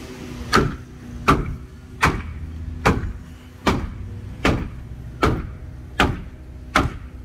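Hammer striking the wooden roof framing of a shed from below, nine evenly spaced blows a little under a second apart, knocking the roof loose during demolition.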